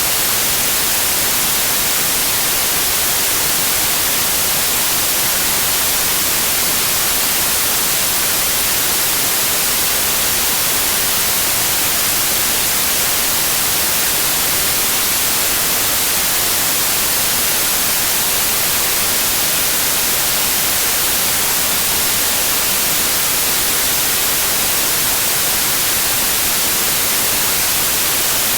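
Steady electronically generated white noise: an even, unchanging hiss, brightest in the treble, with no breaks or other sounds.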